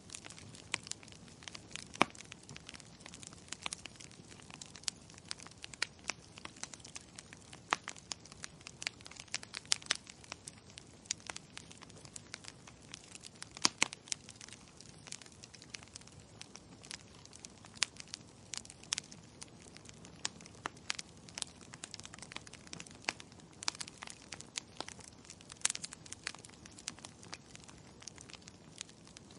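Wood fire crackling: irregular sharp pops and snaps scattered over a soft steady hiss, with a few louder pops.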